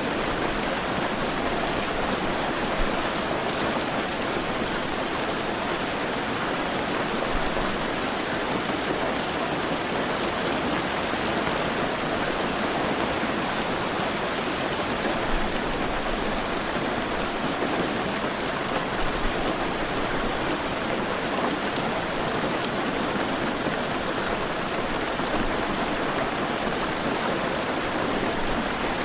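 Heavy rain falling steadily, an even wash of hiss without a break.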